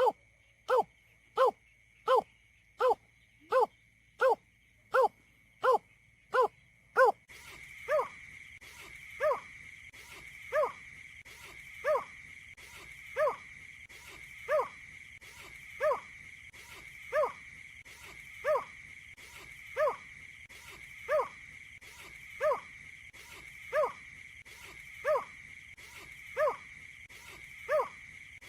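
A marsh bird's call, one hooting note repeated at an even pace, about every 0.7 seconds at first, then slowing to about one every 1.3 seconds some seven seconds in. From that point a steady high-pitched tone and a background hiss are louder.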